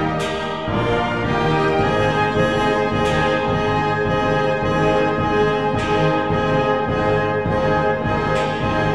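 Orchestral background music led by brass, with held chords and a bright accent about every three seconds.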